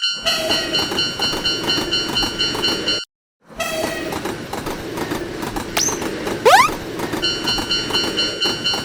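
Railroad crossing warning bell clanging over the rumble and clickety-clack of a passing train. The sound cuts out sharply for about half a second around three seconds in, then the train noise resumes. Around six seconds a quick rising whistle-like glide sounds, and the crossing bell comes back near the end.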